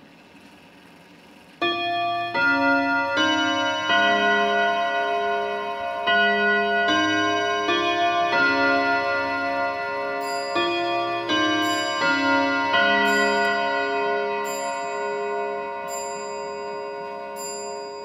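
ODO 62 French antique clock chiming a tune on its 121 rod-gong set. Hammers strike the gong rods in a steady sequence of clear, ringing notes at several pitches, about one strike every three quarters of a second. The chime starts about a second and a half in and slowly grows softer toward the end.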